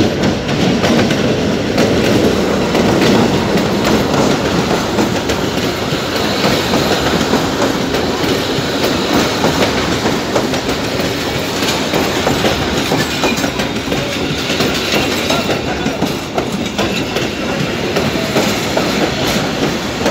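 Diesel-hauled passenger train rolling past close by: a steady rumble with the clickety-clack of steel wheels over the rail joints.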